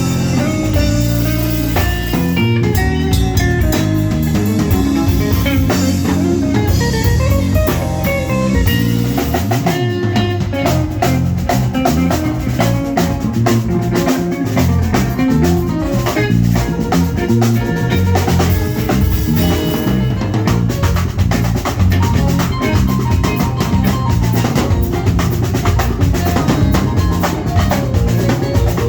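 Live band playing during a sound check: full drum kit with a steady beat and rimshots, electric guitar and bass.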